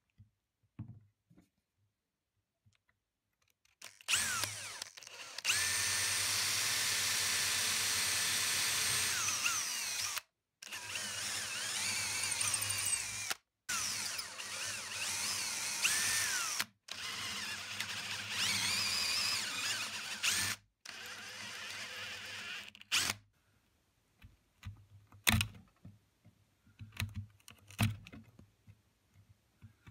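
A power drill boring out the broken stretcher stub from a turned wooden chair part. It runs in several bursts of a few seconds that stop abruptly, and its whine shifts in pitch as it cuts. Scattered light knocks and scrapes of a chisel cleaning out the drilled hole follow near the end.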